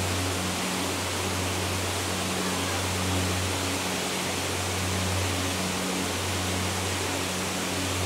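Nachi Falls: a steady, even rush of water falling down the cliff, with faint low music tones underneath.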